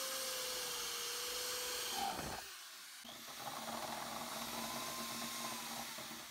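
Electric drill with a spade bit boring a hole through a boat console panel: the motor whirs at a steady pitch, stops about two seconds in, then runs again at a lower pitch and trails off near the end.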